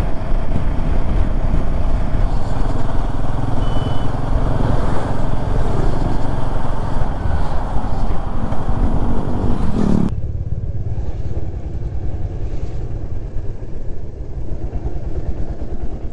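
Royal Enfield Himalayan 450's single-cylinder engine running at steady cruising speed on the open road, heard with wind and road noise on the bike-mounted camera. About ten seconds in the sound turns abruptly duller.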